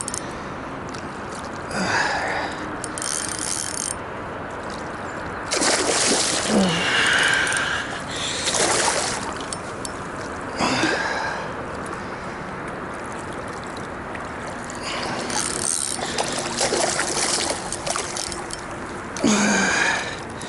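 Hooked fish being played on a spinning rod: the reel being wound and the fish splashing at the surface as it is drawn to the bank, over a steady hiss, with louder rushes every few seconds.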